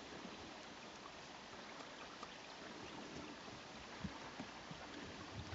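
Faint steady outdoor hiss, with a few soft low thuds about four to five seconds in.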